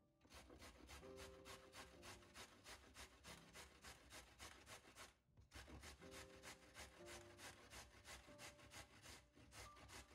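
A carrot being grated on a stainless-steel box grater: rasping strokes at about four a second, with a brief pause about five seconds in. Soft background music plays underneath.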